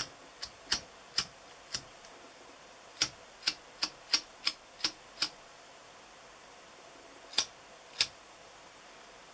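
Gas lighter's igniter clicked about fourteen times in quick, uneven runs, sharp dry clicks with pauses between the groups. The lighter is failing to light after a fresh isobutane refill.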